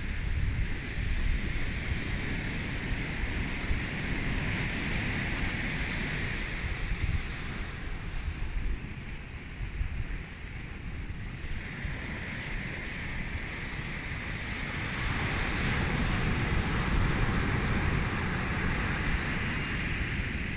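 Surf breaking and washing up the beach, with wind rumbling on the microphone. The wash swells louder a little past the middle.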